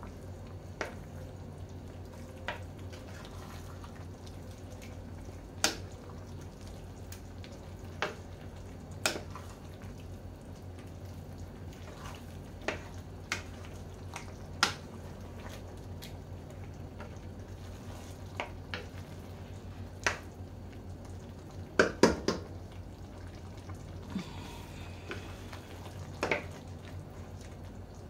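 Wooden spoon stirring fusilli in thick tomato sauce in a stainless steel pan, with a dozen or so scattered knocks of the spoon against the pan and a quick cluster of them about two-thirds of the way through. A steady low hum runs underneath.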